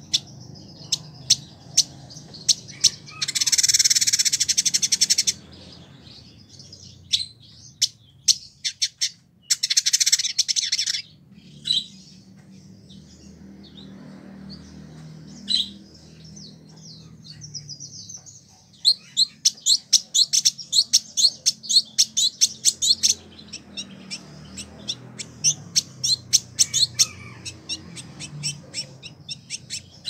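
Male village indigobird (Vidua chalybeata) singing a long varied song: fast trains of dry, high clicking notes, two loud buzzy chattering phrases in the first half, a few short whistles in the middle, and a long rapid run of clicks in the second half.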